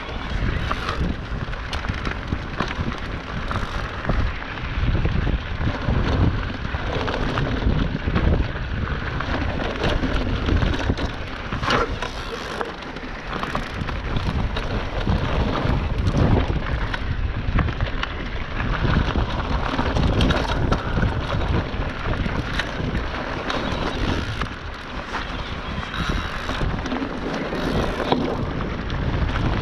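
Electric mountain bike riding fast down a stony dirt singletrack: tyres crackling over gravel and the bike rattling over bumps, with wind buffeting the microphone.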